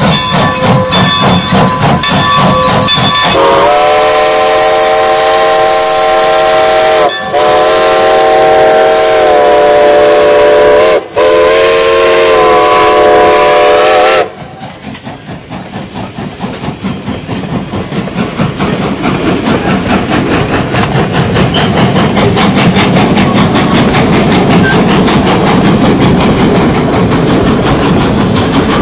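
Steam whistle of Strasburg Rail Road No. 90, a Baldwin 2-10-0 steam locomotive, blowing long chime blasts for a grade crossing, with two short breaks, then cutting off sharply. The train passes close by, its rhythmic exhaust and the clatter of the coaches' wheels continuing once the whistle stops, with a crossing bell ringing.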